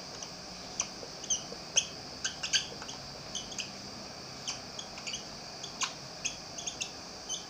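Whiteboard marker squeaking across the board as words are written: short, high, irregular squeaks, a few a second.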